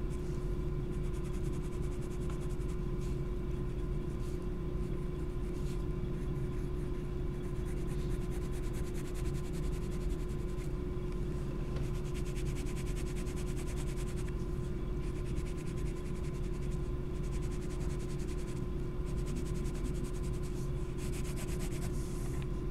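Graphite lead scratching and rubbing on sketchbook paper in patches of short shading strokes, over a steady background hum.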